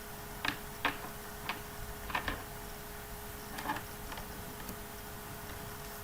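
About six short, sharp clicks at irregular spacing in the first four seconds, over a faint steady hum and hiss.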